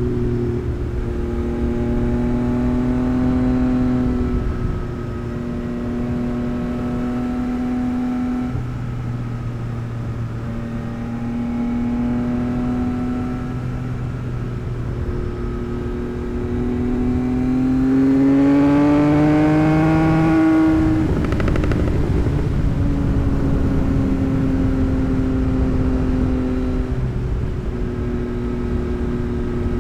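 Tuned 2024 Yamaha MT-09's three-cylinder engine and exhaust under way, holding mostly steady notes with brief breaks between them. About two-thirds of the way through, the note rises sharply under acceleration, then breaks off in a rough burst before settling back to a steady, lower note.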